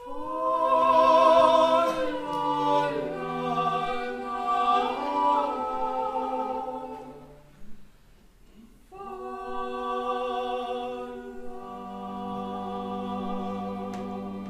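Operetta singing: a woman's and a man's voices holding long notes with vibrato, together in harmony. They break off about halfway, then resume on long held notes, with a lower voice joining near the end.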